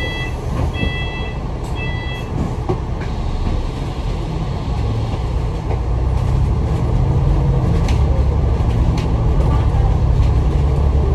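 Inside a Citybus bus: electronic door warning beeps repeat about once every 0.7 s and stop about 2 seconds in, over the loud air-conditioning and engine. About halfway through the engine grows louder as the bus accelerates.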